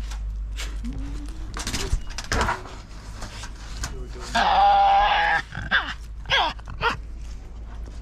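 An animal's call lasting about a second, about four seconds in, the loudest sound here, among short voice sounds and clicks.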